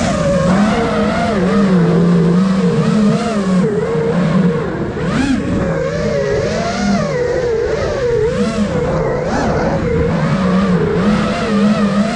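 Brushless motors and propellers of an iFlight Nazgul Evoque F5 five-inch FPV quadcopter in flight: a buzzing whine that rises and falls continually with the throttle, over a rush of wind noise.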